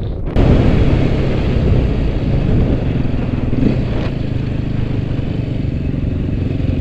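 Off-road motorcycle engine running steadily close by, cutting in abruptly just after the start.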